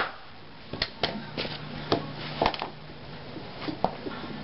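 Rubber mallet tapping on a wooden block to drive a wheel speed sensor down flush onto a wheel hub: about nine light, unevenly spaced taps, the first the loudest.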